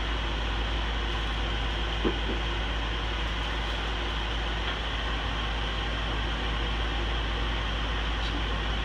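Microwave oven running with a steady hum and fan noise while heating popcorn that has not started popping yet. There is one brief click about two seconds in.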